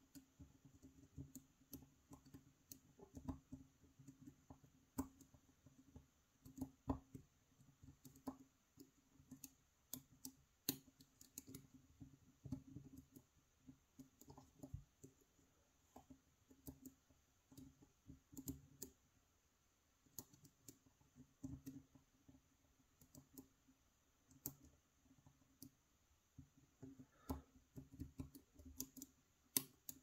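Faint, irregular clicking of a steel pick and tension wrench working the tapered pin stacks of a brass euro cylinder lock, with many small clicks as the tapered pins set a little at a time.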